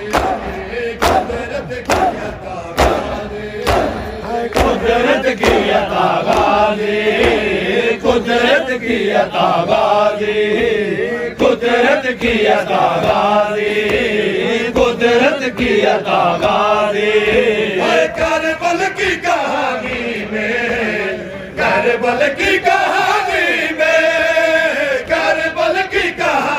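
A group of men chanting a Shia noha lament in unison, a mournful recitation sung by many voices, with the sharp slaps of chest-beating (matam) from the crowd cutting through it.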